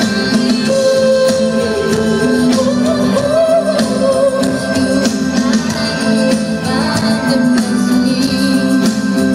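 Live pop band playing, recorded from the audience: a woman singing over keyboard, electric and acoustic guitars and drums.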